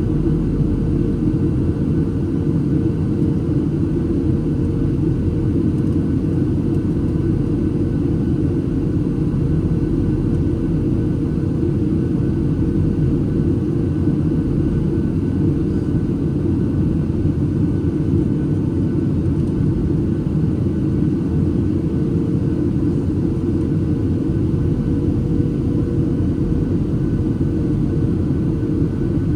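Cabin noise inside a Boeing 737-800 airliner: the steady low roar of its CFM56-7B jet engines and the airflow, with a faint steady hum, unchanging throughout.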